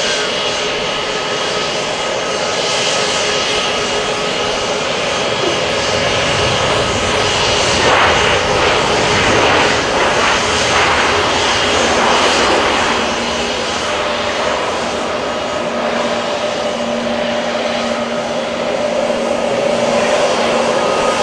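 Jet engines at taxi power: the steady rush and thin whine of a large business jet's twin rear-mounted turbofans, with a louder swell of airliner jet noise from the runway building about eight seconds in and easing off after about thirteen.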